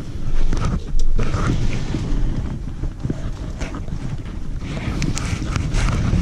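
Handling and rubbing noise on the microphone, with a low rumble, rustling and scattered clicks and knocks.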